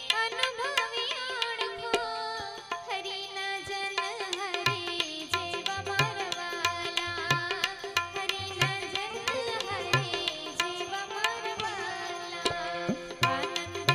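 Devotional aarti music: an Indian banjo (bulbul tarang) plays a melody over a steady tabla rhythm.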